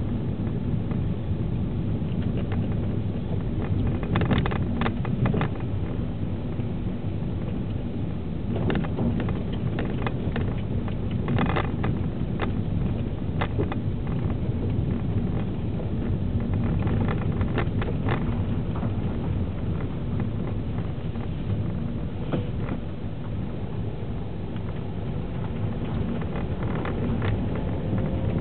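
Steady engine and tyre noise heard from inside a 2009 Vauxhall Astra with a 1.8-litre petrol engine and automatic gearbox, driven slowly along a single-track lane with patched tarmac. Scattered short clicks and knocks come through in small clusters.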